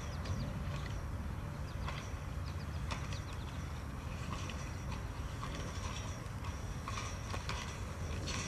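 Inline skate grinding down a long metal kinked handrail: a steady scraping rumble with a sharp clack about once a second.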